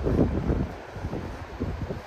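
Wind buffeting the microphone in gusts, heaviest in the first half second, then easing.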